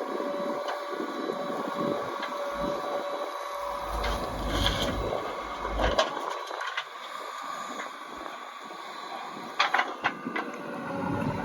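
JCB 3DX backhoe loader running steadily with a hum, its work punctuated by a few sharp clanks, one in the middle and a short cluster near the end.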